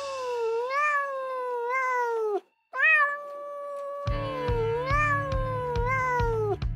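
A cat meowing in two long, drawn-out calls that waver in pitch and sag downward at the end, with a brief silent break between them. Background music with a steady beat comes in under the second call.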